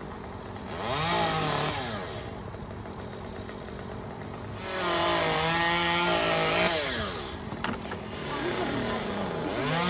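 Stihl chainsaw running up in the tree, idling between two throttle-ups. The first comes about a second in and is brief; the second, at about five seconds, is held for about two seconds. Each time the engine pitch climbs, holds and drops back to idle.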